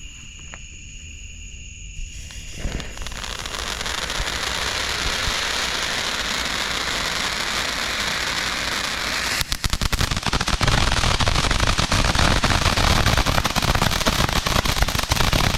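Lightning Rod fireworks fountain burning: about two and a half seconds in it starts spraying with a steady hiss that builds. About seven seconds later it turns to dense, loud crackling, which cuts off suddenly at the end.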